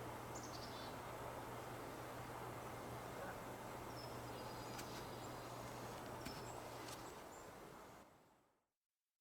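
Faint outdoor spring ambience: a steady hiss with a few brief, high bird chirps. It fades out near the end to silence.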